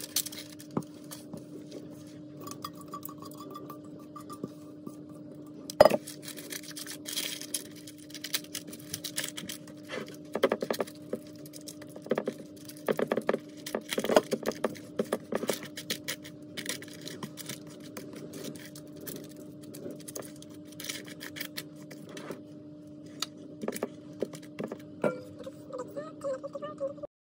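A spatula pressing a granola mixture into a glass baking dish: repeated scraping, tapping and clinking against the glass, with one sharp knock about six seconds in. A steady low hum runs underneath.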